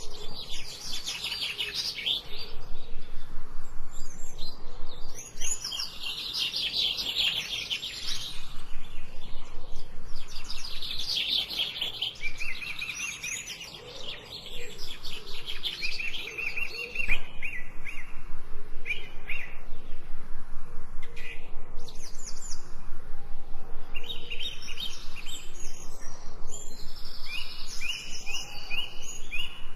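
Songbirds singing and chirping, several overlapping songs made of quick repeated chirps and trills, over a faint steady background hiss.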